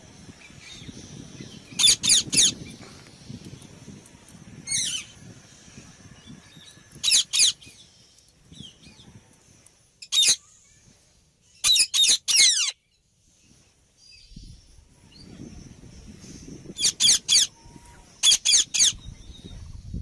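Indian ringneck parakeets calling: loud, shrill screeches in quick runs of two to four, each sliding down in pitch, repeated every few seconds.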